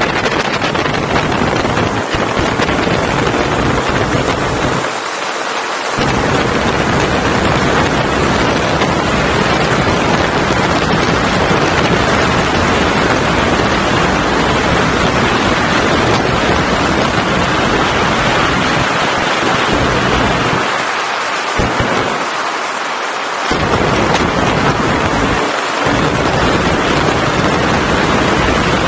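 Wind rushing over the microphone of a camera mounted on a moving motorcycle: a loud, steady rush that drowns out the engine, its low rumble easing briefly a few times.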